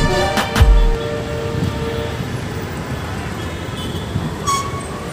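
City road traffic: a steady rumble of passing vehicles, with a horn held for over a second and a short horn toot near the end. Background music with a beat cuts off about a second in.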